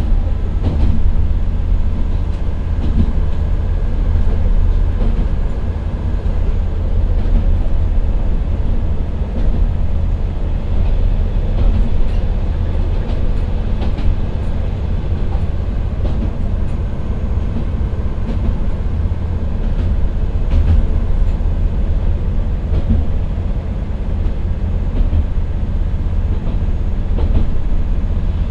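Cabin running sound of the Akechi 10 diesel railcar climbing a grade at about 40 km/h: the Nissan Diesel PE6HT03 engine drones steadily under load over wheel-on-rail rumble. A few faint clicks come from the wheels now and then.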